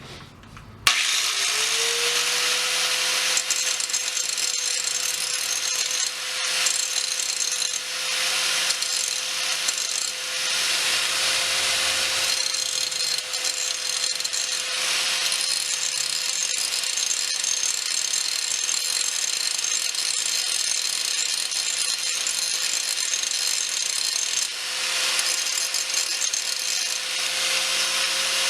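Angle grinder with a grinding wheel switched on, spinning up to a steady whine about a second in, then grinding the pitted steel faces of a body hammer, the grinding noise swelling and easing in long passes.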